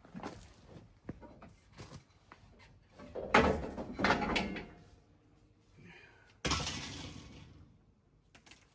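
Knocks and clatter from work on a Jeep Gladiator's rear suspension during a lift-kit install. A louder run of clattering comes about three to four and a half seconds in, and one sudden loud clank about six and a half seconds in fades away over a second or so.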